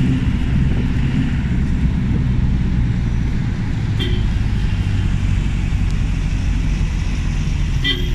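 Steady engine and road rumble heard from inside a vehicle riding through city traffic, with a short car-horn toot about four seconds in and more brief toots near the end.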